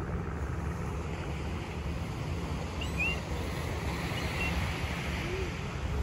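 Steady rumbling wind and surf noise, with wind buffeting the microphone and a few faint high chirps about halfway through.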